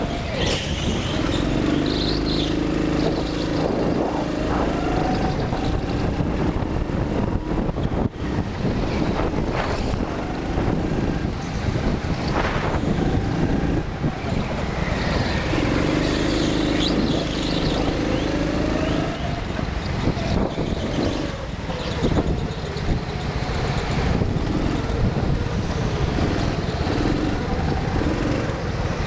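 Petrol-engined rental go-kart running at speed around an indoor track, heard from on board, its engine drone continuous with a pitched hum that comes and goes.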